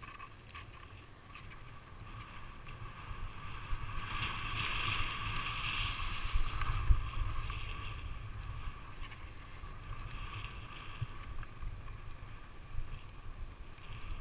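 Skis hissing and scraping over packed snow on a downhill run, with wind rumbling on the microphone. The rush swells to its loudest in the middle and eases off near the end.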